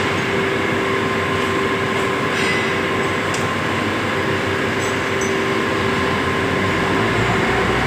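Steady hum and hiss of running machinery, with a couple of steady tones held throughout and a few faint clicks.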